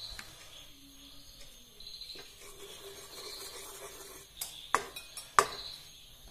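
A spoon knocking against a small non-stick kadai while melting ghee is spread in it, with a few sharp clinks a little past the middle. Crickets chirp faintly throughout.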